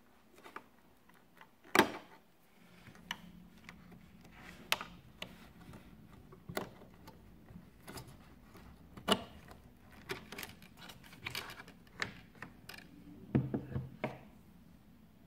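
Plastic wire connectors being unplugged from a coffee machine's power circuit board: irregular small plastic clicks and knocks. The sharpest is about two seconds in, and there is a quick cluster near the end.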